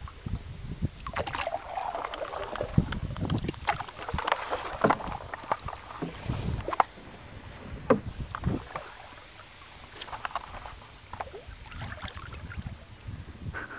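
Paddling a small boat on a river: paddle strokes splashing in the water, with irregular sharp knocks of the paddle against the hull.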